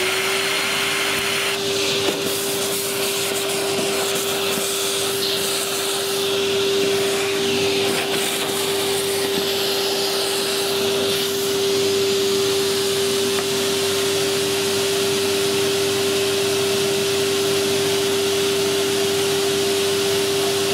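Spindle motor of a DIY gantry CNC router running at a steady high speed with a constant whine, under a hiss of cutting noise as the cutter mills aluminium.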